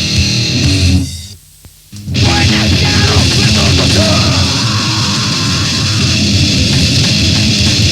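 Grindcore/power-violence band demo recording: loud, distorted heavy music from a full band. It stops dead about a second in, leaving a quiet gap of roughly a second, then the band comes back in at full volume.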